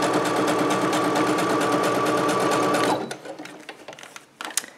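Electric sewing machine running steadily, zigzag-stitching with a steady hum and rapid needle strokes. It stops abruptly about three seconds in, followed by a few light clicks.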